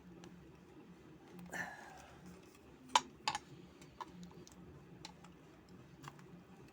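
Plastic casing of a hair dryer being prised open by hand: a short scrape, then two sharp clicks close together about halfway through, followed by a few faint ticks.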